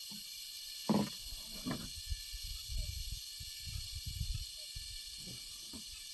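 Steady high-pitched hiss of outdoor ambience, with a few dull knocks and low thuds about a second in and through the middle.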